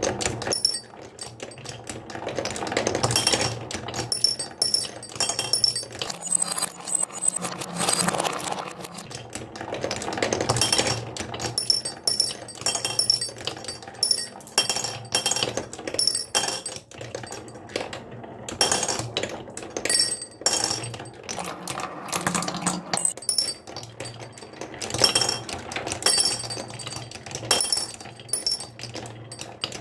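Small hard objects clicking and clinking in quick, irregular runs, with bright ringing tones that come and go.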